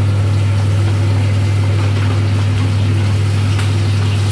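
Kitchen range hood fan humming steadily, while meat sizzles in a frying pan.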